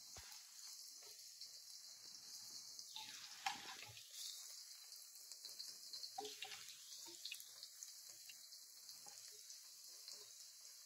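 Garlic cloves and mustard seeds frying in sesame oil in a kadai: a faint, steady sizzle with small crackles, and the occasional scrape or tap of a wooden spatula stirring the pan.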